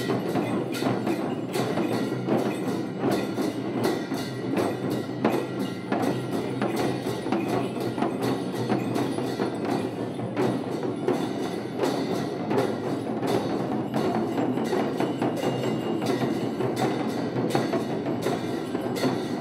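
Jhakri shamans' dhyangro frame drums, many beaten together with curved sticks in a steady rhythm of dense strokes, with a steady metallic ringing over the beats.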